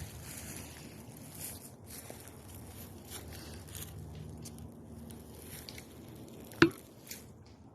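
Footsteps crunching through dry leaf litter and brush in an uneven rhythm, with one sharp snap or knock about two-thirds of the way in.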